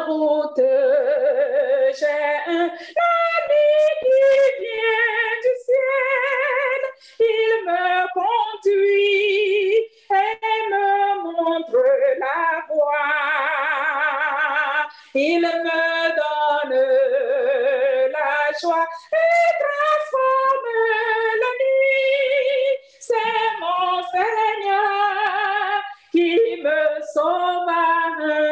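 A woman singing a gospel hymn solo and unaccompanied, holding notes with vibrato and pausing briefly for breath, heard through a Zoom video call.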